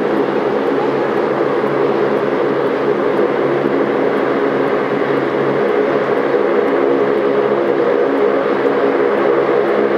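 Jet airliner engines running steadily while the aircraft taxis: a continuous rush with several steady low tones held under it.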